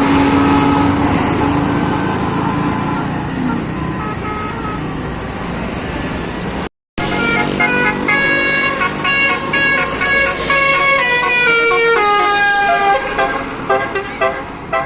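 Bus engine and road noise with a few faint horn tones. After a brief dropout, a Basuri telolet multi-tone bus horn plays a quick melody of stepped notes that change pitch every fraction of a second.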